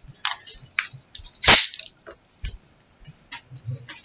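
Small objects being handled close to the microphone: irregular clicks and taps, with one louder, brief scraping rush about one and a half seconds in.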